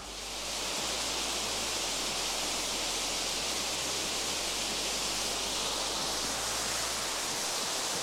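Steady rushing of a tall waterfall pouring down a stepped rock face into rocky pools.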